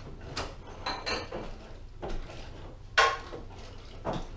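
Kitchen clatter: a few scattered knocks and clinks of utensils and dishes on the counter, the sharpest a ringing clink about three seconds in.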